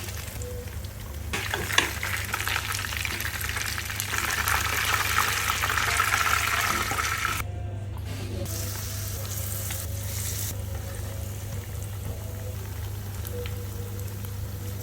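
Food frying in a pan, a hissing sizzle that swells about a second in and stays loud for several seconds, over a steady low hum. The sizzle cuts off abruptly about halfway through, then goes on more quietly.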